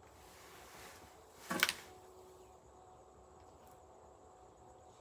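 A short cluster of sharp clicks about a second and a half in, from the Ruger Super Redhawk .44 Magnum revolver being handled as it is raised to aim, over quiet background. No shot is fired.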